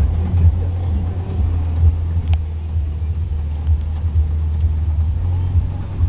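Jeep Wrangler TJ engine and drivetrain heard from inside the cabin as it crawls along a rough, rutted off-road trail. A steady low rumble wavers with the bumps, and a brief click comes a little over two seconds in.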